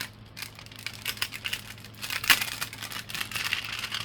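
Packaging being handled, crinkling and rustling in short irregular crackles, with one sharper crackle a little over two seconds in.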